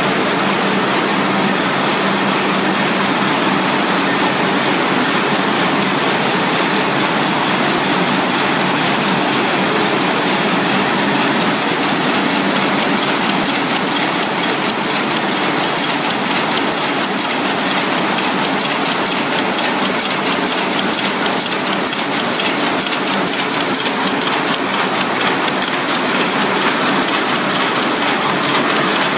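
Nanjiang HD-330 roll-fed square-bottom paper bag machine running in production, a loud, steady, fast mechanical clatter as it feeds, glues and forms paper bags.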